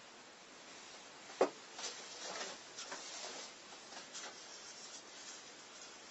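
Hand work with small objects at a workbench: one sharp knock about a second and a half in, then a few seconds of light, irregular clicks and scraping.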